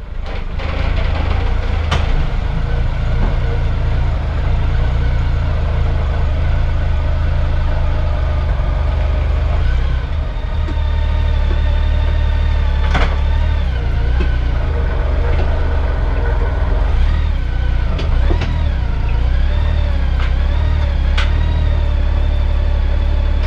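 Honda Gold Wing GL1800's flat-six engine running inside an enclosed metal trailer: a steady, loud low drone whose pitch wavers briefly about two thirds of the way through.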